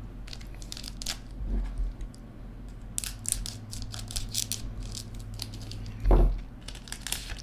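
Trading cards and a foil pack wrapper being handled: crinkling, rustling and quick scraping clicks. There is a loud low thump about six seconds in, over a steady low hum.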